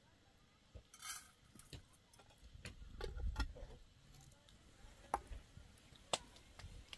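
Sparse, irregular sharp clicks and ticks, the strongest two near the end, over a faint low rumble, with a short hiss about a second in.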